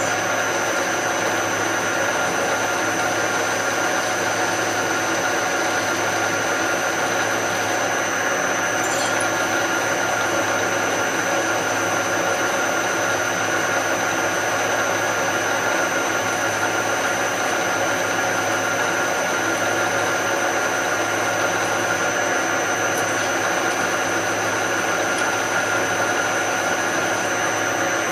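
Drill press motor running steadily while drilling into a thick metal vise part, with a constant whine over the motor's hum.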